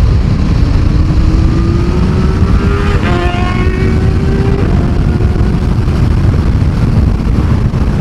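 Another motorcycle accelerating past, its engine note rising and then dropping in pitch as it goes by about three seconds in. Underneath, steady wind rush and the rumble of the rider's own Honda CBF1000 inline-four.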